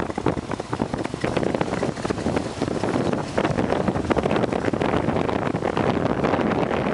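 Wind buffeting the microphone on a moving motorcycle, a continuous gusty rumble with the motorcycle's engine running underneath.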